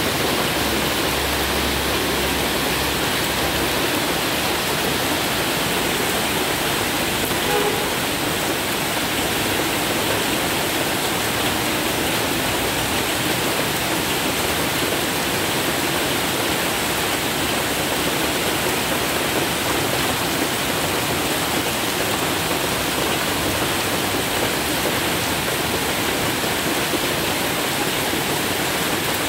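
Heavy rain falling steadily on a flooded street, a dense even hiss. A passing vehicle's low engine rumble sits under it in the first few seconds.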